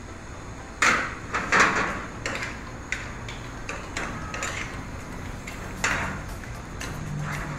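A long metal spoon scraping and knocking against a skillet as it turns a pan of rice, in a string of short, irregular scrapes that are loudest in the first two seconds.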